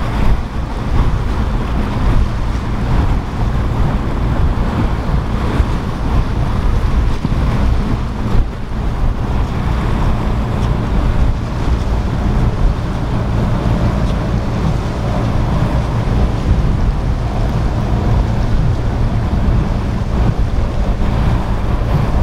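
Boat engines running with a steady low drone under surf and wind buffeting the microphone.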